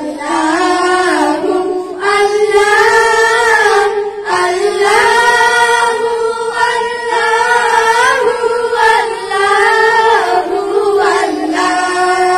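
Schoolchildren singing a Bangla Islamic gojol (ghazal) together, a girl's voice leading through a microphone. They sing in phrases of a few seconds with long held notes.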